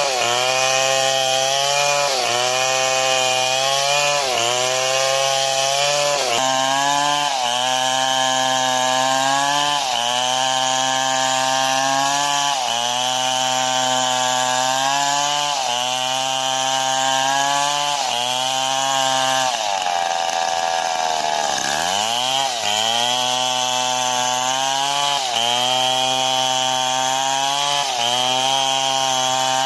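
Large two-stroke STIHL MS 070 chainsaw running at high speed, cutting wood. Its engine note dips and recovers every two seconds or so as it bites. About two-thirds of the way through the engine speed drops right down, then revs back up.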